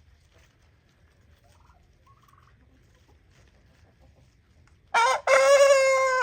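An old rooster, over five years of age, crowing near the end: a short first note, then one long held note. It is an 'old man crow', the rooster losing its voice with age.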